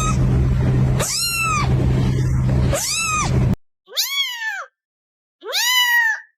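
Kittens meowing, about five high-pitched meows each rising then falling in pitch. The first three sound over a steady low hum that cuts off suddenly after about three and a half seconds; the last two come on a clean, quiet background.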